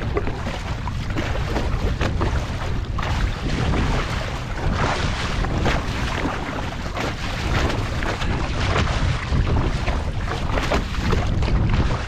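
Strong wind buffeting the microphone with a steady low rumble, over choppy sea water splashing and slapping around a kayak.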